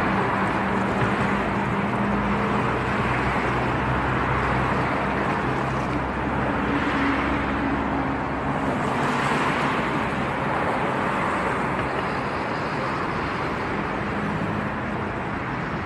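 Steady city road traffic: vehicles running past with engine hum and tyre noise, swelling as cars pass about seven and nine seconds in.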